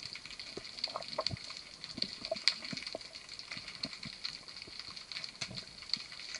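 Underwater ambience heard through a camera housing: a steady hiss with dense, irregular crackling and clicking, and a few sharper knocks.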